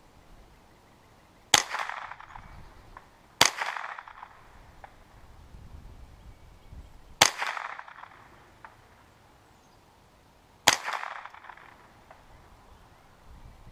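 Ruger 10/22 semi-automatic .22 rifle firing four single shots at uneven intervals, each a sharp crack with a short echo trailing off.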